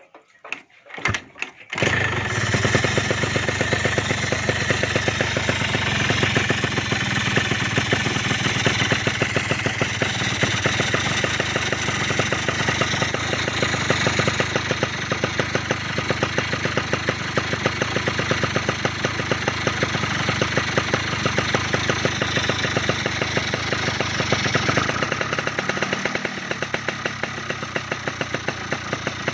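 Yamaha RX-King two-stroke single-cylinder engine with an oversized PWK 35 carburettor, catching after a few sputters about two seconds in, then running fast with a rapid, rasping exhaust beat that swells slightly now and then.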